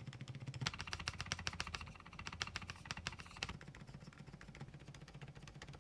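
Soft, muted keystrokes on an AULA F87 Pro mechanical keyboard fitted with Outemu silent peach V2 switches, pressed in quick irregular runs. The clacks are quiet and damped, as silent switches should sound.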